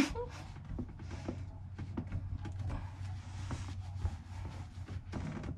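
A sharp knock at the start, then scattered scrapes and clicks of hands turning a plastic slip nut on a sink drain trap and rubbing a towel over the plastic pipe. A low steady hum runs underneath.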